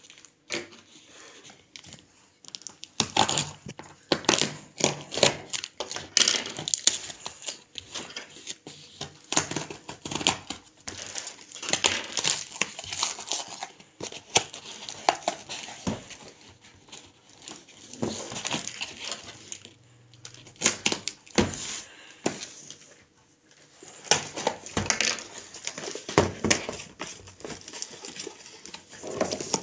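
Plastic parcel wrapping and packing tape crinkling and tearing as a parcel is unwrapped by hand, in irregular bursts with a few short pauses.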